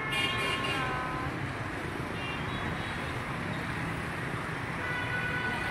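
Busy motorbike and scooter traffic passing: a steady din of many small engines and tyres, with a horn sounding briefly near the start and again near the end.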